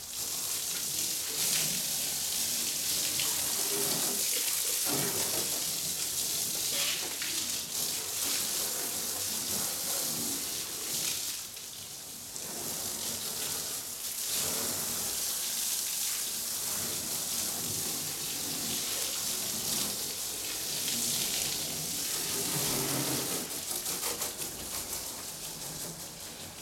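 Garden hose spraying water over a soapy car body, with water splashing onto the pavement: a steady hiss that eases off briefly about halfway through.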